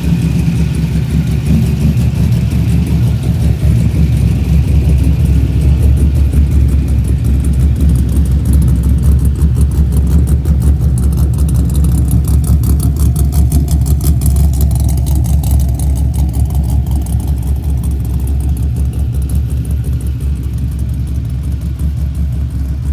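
LS6 5.7-litre V8 in a swapped Mazda RX-7 idling steadily, a deep, even exhaust rumble.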